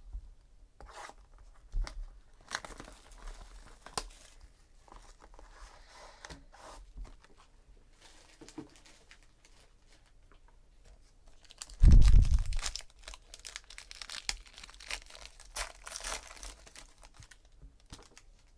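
The gold foil wrapper of a trading-card pack being torn and crinkled open by hand, with scattered rustles and clicks. A heavy thump about twelve seconds in is the loudest sound, followed by several seconds of dense crinkling.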